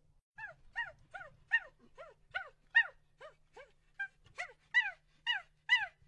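An animal's short, high, squeaky calls repeated in a steady series, about two or three a second, each one sliding down in pitch.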